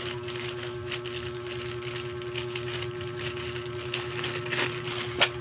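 Steady motor-like hum with one constant tone underneath, and light rustling with a few sharp clicks near the end as a plastic-bagged package is handled.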